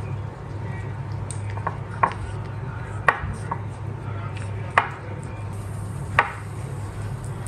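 Hand dredging a marinated chicken leg in a plate of flour: soft pressing and patting, with a few sharp taps against the plate over a steady low hum.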